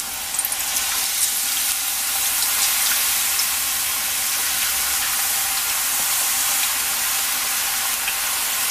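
Hot oil sizzling steadily in a wide kadai as thin, damp potato slices are dropped into it for frying chips, with a few faint pops. The sizzle is the moisture left in the slices hitting the hot oil.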